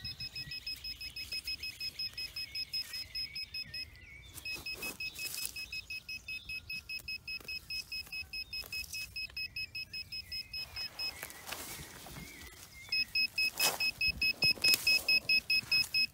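Handheld metal-detecting pinpointer beeping rapidly at one high pitch, about three to four beeps a second, as it is pushed into the soil of a dug hole: it is signalling a metal target. The beeping stops twice for a moment and comes back louder near the end, with brief scrapes of soil being handled.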